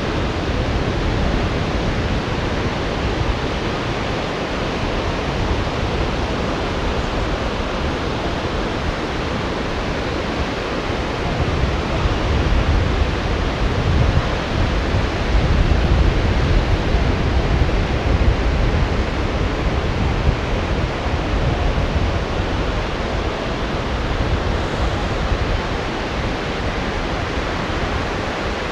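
Rough surf breaking and washing in a steady rush of noise, with a heavier, deeper rumble for several seconds in the middle.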